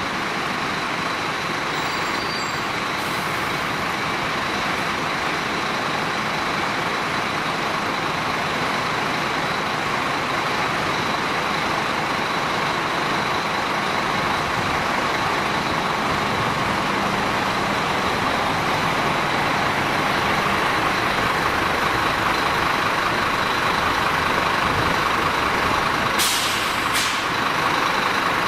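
A large vehicle running steadily, growing slightly louder, with short air hisses about three seconds in and twice near the end.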